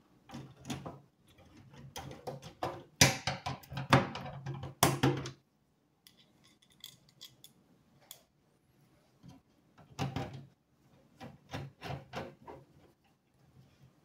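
Clicks, knocks and scrapes of an ISA expansion card being handled into a motherboard slot and its metal bracket being fixed to the computer case with a screwdriver. The loudest knocks come about three and five seconds in, then after a short quiet spell a second flurry of lighter clicks.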